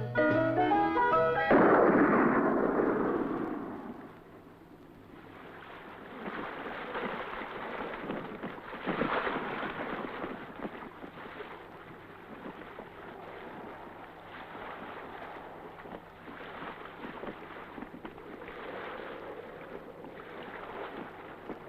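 Jazzy brass music cuts off about a second and a half in, giving way to a rush of water and wind that fades over a couple of seconds; then a softer wash of sea noise rising and falling in surges, with a stronger surge near the middle.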